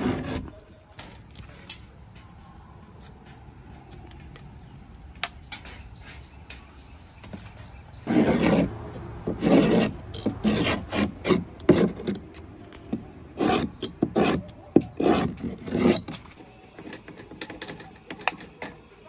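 A wooden stick rubbed and scraped in repeated strokes against the wooden planks of a boat hull: a few strokes at the start, then after a quieter stretch a run of strokes at about one to two a second.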